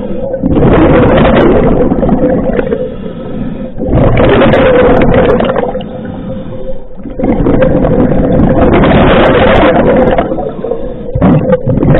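Scuba diver breathing underwater through a regulator: loud rushes of exhaled bubbles lasting two to three seconds each, about every four seconds, with quieter gaps between for the in-breaths, and a fourth exhalation starting near the end.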